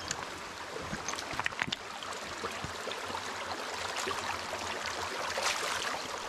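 Shallow creek water running over stones and gravel, a steady rippling wash. A few short clicks come a second or two in, and the sound swells slightly near the end.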